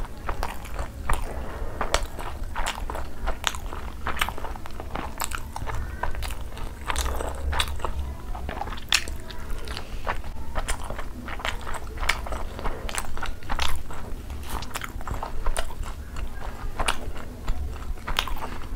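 Someone biting into and chewing dumplings, with frequent sharp mouth clicks at an irregular pace.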